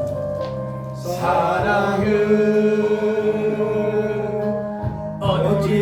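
Slow Korean worship song sung over a steady accompaniment. A long held note begins about a second in and lasts until about five seconds, when the next phrase starts.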